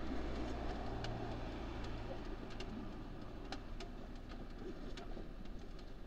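A dove cooing, with a low hum that fades about two seconds in and faint ticks now and then.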